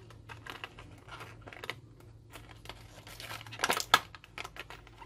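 Clear plastic blister packaging crackling and clicking as in-ear headphones and their cable are pried out of it. A burst of louder crackles comes a little over halfway through.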